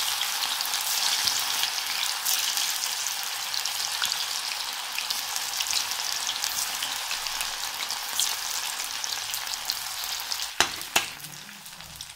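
Batter-coated cauliflower florets deep-frying in hot oil in a kadhai: a dense, steady sizzle with crackles that starts abruptly and gets quieter after about ten seconds. Near the end come two sharp knocks.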